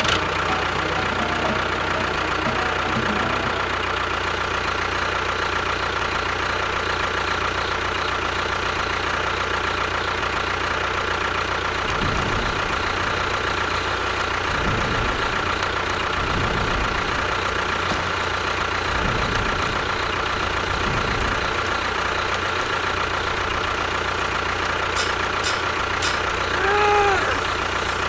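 A small motor running steadily for the whole stretch, with a constant whine and no change in speed.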